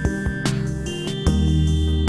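Background music with a steady beat: sustained bass and held notes, with drum hits about every half second.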